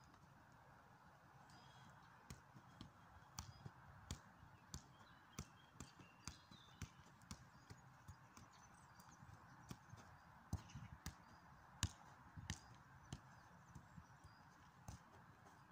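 Light, regular taps about twice a second: a footballer's boots touching the ball and stepping on an artificial turf pitch, over a faint steady hiss.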